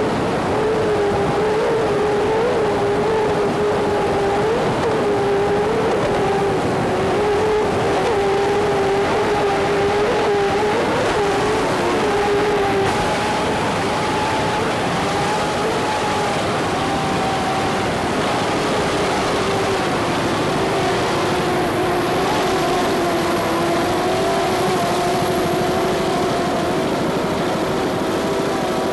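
Steady, loud engine drone at high power over rushing noise, with brief upward pitch blips every second or two in the first half that then settle.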